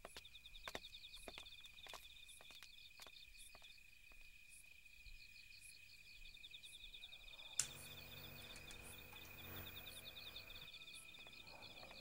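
Faint night ambience of insects chirping: a steady high trill with a rapid pulsing chirp above it. Soft footsteps tap about every half second in the first few seconds, and a low hum comes in with a click about seven and a half seconds in, fading out near the end.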